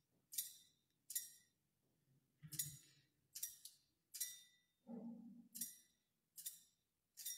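Small hand-rung altar bell, struck about eight times at roughly one ring a second, each ring short and bright with a brief metallic tail. It is rung at the elevation of the chalice right after the consecration.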